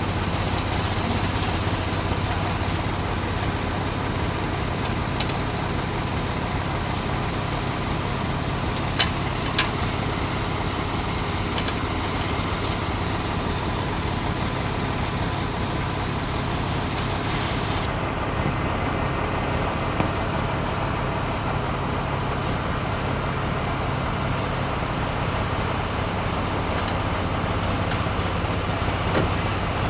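An engine running steadily at constant speed, a continuous even hum with a few faint clicks about nine seconds in.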